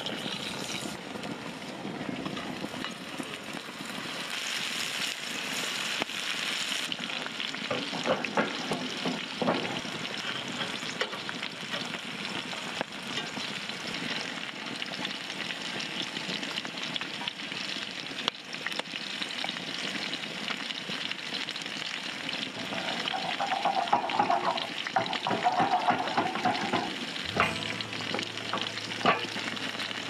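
Meatballs sizzling in a frying pan, a steady hiss throughout, with mashed potato being stirred and utensils knocking and scraping against the pots now and then.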